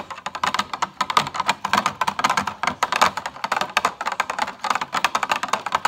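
Wire whisk clicking and rattling rapidly against the sides of a glass measuring cup as liquid is whisked.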